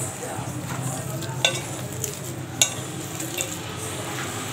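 A hand squeezing and kneading a wet bonda mixture of soya chunks, onion, flour and egg in a steel bowl: a steady wet mixing sound, with two sharp clicks about a second and a half and two and a half seconds in.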